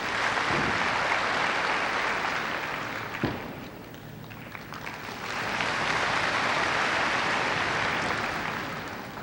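Arena crowd applauding in two swells, the first easing off about three seconds in and the second building again, with a single sharp thump between them.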